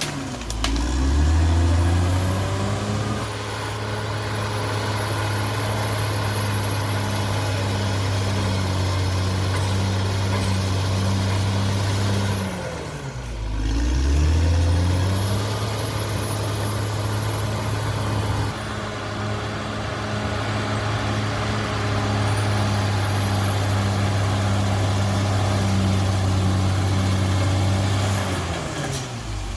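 Cat D6R XL crawler bulldozer's diesel engine running steadily under load. Its speed drops and climbs back about a second in and again around thirteen seconds in, then drops once more near the end, each time followed by a rising high whine that holds steady.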